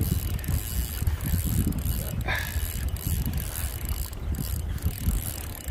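Fishing reel being cranked to bring in a fish, its gears whirring and clicking, over a steady low rumble of strong wind on the microphone.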